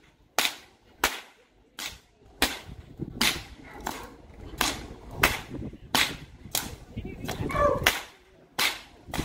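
Lead-weighted Florida cracker cow whip cracked again and again in a steady rhythm: about thirteen sharp cracks, roughly three every two seconds.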